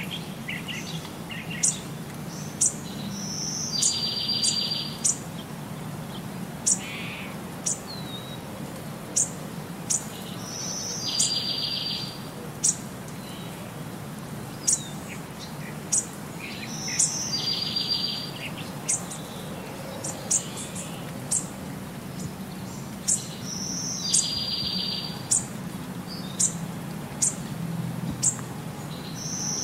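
Looped birdsong backing track: short high chirps about once a second, and a buzzy trill about a second long that repeats about every seven seconds, over a low steady hum.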